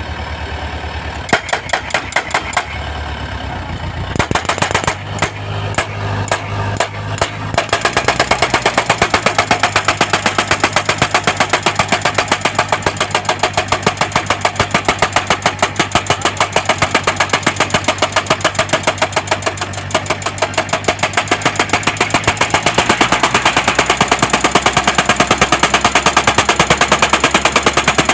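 Guardrail post-driving machine hammering a steel post for a metal beam crash barrier: a few separate blows at first, then rapid, continuous hammering from about eight seconds in, over the low hum of the machine's engine.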